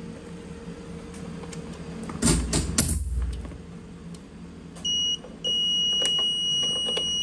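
A brief clatter of handling about two seconds in, then the HAUDIO EX-8 digital karaoke mixer's built-in buzzer starts a high, steady beep about five seconds in, breaks off for a moment and then sounds continuously. This nonstop beeping during start-up is the unit's fault warning, which goes on to a DSP Error.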